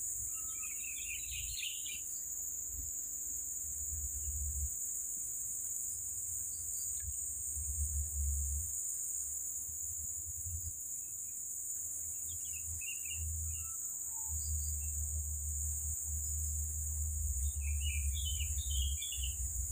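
Steady high-pitched insect chorus, with bird chirps breaking in briefly three times: about a second in, around the middle and near the end.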